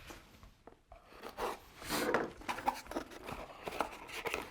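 A cardboard product box being opened and its packaging handled: scattered rustles and small clicks, starting about a second and a half in.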